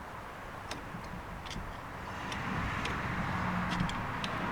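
Scattered light clicks of hand tools being handled on the tractor's brake, over a steady background rumble that grows louder about two seconds in.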